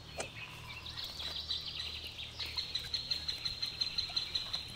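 A small bird calling outdoors in a fast series of high chirps that grow more regular in the second half, about eight a second.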